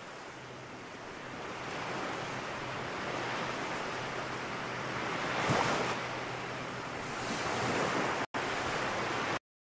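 Ocean surf washing onto the beach, with wind on the microphone and a brief louder swell about halfway through. The sound drops out for an instant near the end, then cuts off suddenly.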